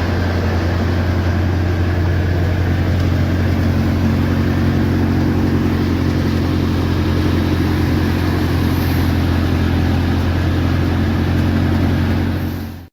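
Farm machinery engine running steadily at constant speed, with a deep hum. It cuts off abruptly near the end.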